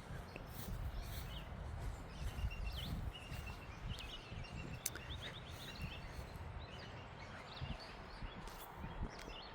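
Small birds chirping in short, repeated high calls, clustered in the middle seconds, over a low, uneven rumble with soft thuds from walking.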